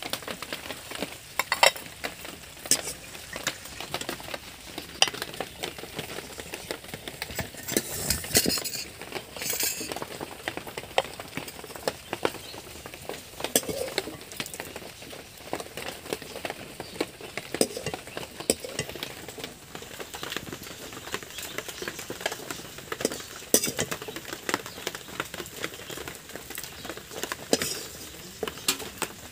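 A metal spoon clinking and scraping against a cooking pan as rui fish curry is scooped out, with irregular knocks and the curry sizzling in the pan.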